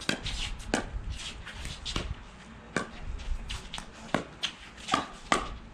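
A doubles pickleball rally: paddles striking a plastic pickleball back and forth, a string of sharp pops roughly every half-second to second.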